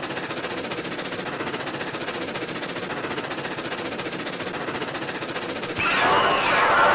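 Creature sound effect: a fast, even mechanical rattling, then about six seconds in a louder screech with wavering high pitches breaks in.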